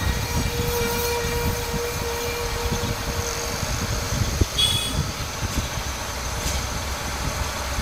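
Steady low rumble of background noise, with a faint steady hum for the first three seconds and a light click with a short rustle about four and a half seconds in.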